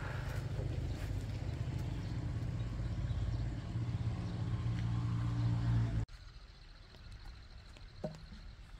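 An engine running with a steady low hum, growing louder, then cut off abruptly about six seconds in, leaving quiet outdoor background.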